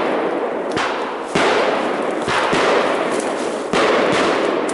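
Fireworks used as simulated artillery bursting overhead: a quick series of about four loud bangs, each trailing off in a hissing, fading rush of noise.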